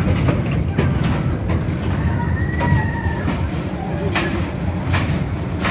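Children's fairground train ride running on its track: a steady low rumble with a few sharp clacks as the wheels pass over the rail joints.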